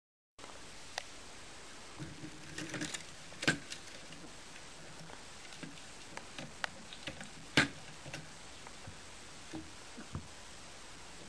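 Scattered light taps and clicks over a steady hiss, with two louder clicks, one about a third of the way in and one about two-thirds of the way in.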